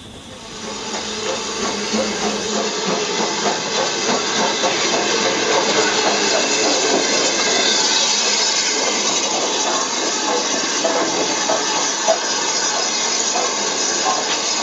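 BR Standard Class 9F steam locomotive letting off a loud, steady hiss of steam as it moves along the platform. The hiss builds over the first couple of seconds and then holds steady, with one sharp knock near the end.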